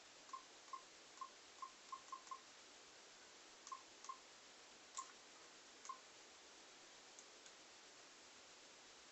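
Compact Canon digital camera beeping as its buttons are pressed: about eleven short electronic beeps at one pitch, seven in quick succession, then four more spaced out, followed by two faint button clicks.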